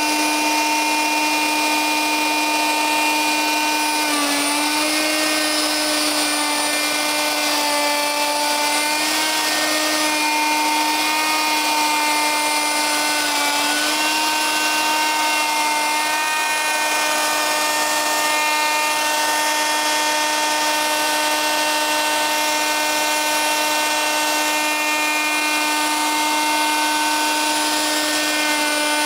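Triton router running at high speed while surfacing a rough walnut slab on a flattening jig: a steady high whine whose pitch sags briefly under load a couple of times.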